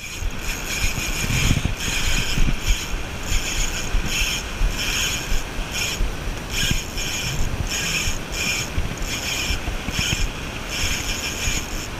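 Spinning reel's drag letting out line in short repeated spurts, about twice a second, as a hooked giant yellowfin tuna pulls against the bent rod.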